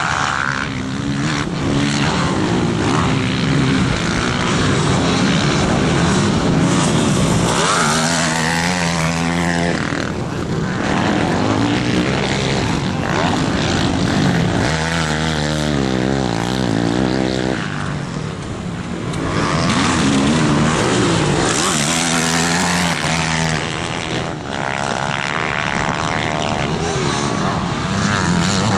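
Motocross dirt bike engines racing around a track, their pitch rising and falling again and again as the riders open and close the throttle and shift through the gears.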